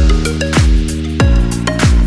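Electronic background music with a deep kick drum that drops in pitch, striking about every 0.6 seconds under sustained synth notes.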